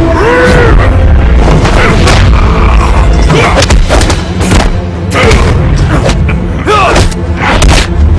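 Martial-arts film fight soundtrack: a quick series of heavy punch and body-blow impact effects, with booming hits, over dramatic music.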